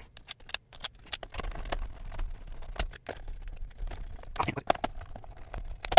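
Handling noise from reassembling a CyberPower 625VA UPS by hand: irregular clicks and knocks of its plastic case and parts being moved and fitted together, with a louder cluster about four and a half seconds in.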